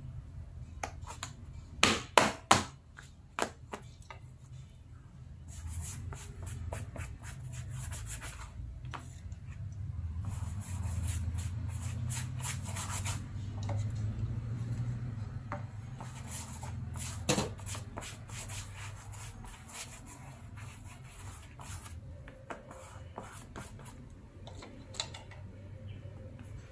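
Shoe insoles being slid, rubbed and pressed by hand against a sheet of sole material, over a low steady rumble. There are three sharp taps about two seconds in and another a little past halfway.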